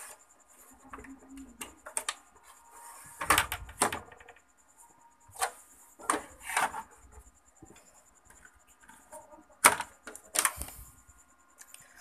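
Handling noise from the opened CRT TV: several sharp knocks and clicks at irregular intervals, with some rubbing, as its wires and circuit board are moved by hand.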